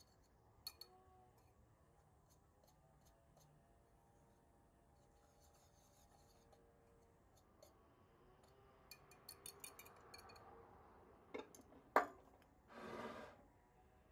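Faint clicks and taps of things being handled in a quiet kitchen, with two sharper clicks near the end followed by a short scraping rustle.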